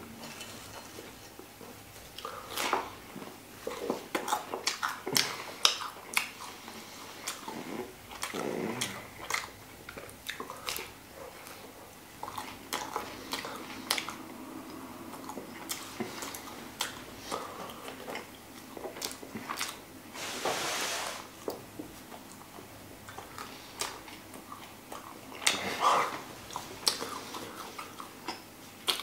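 A person chewing and biting pizza with the mouth close to the microphone: irregular wet mouth clicks and smacks throughout, with a few longer rustling breaths or swallows.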